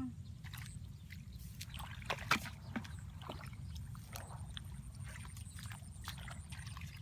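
Water splashing and sloshing in short, irregular bursts, the loudest about two and a half seconds in, over a steady low rumble.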